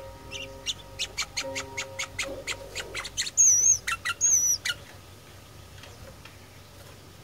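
Sooty-headed bulbul (kutilang) singing: a quick run of sharp chirps, about five a second, broken by two louder, wavering high whistles, then falling silent about five seconds in.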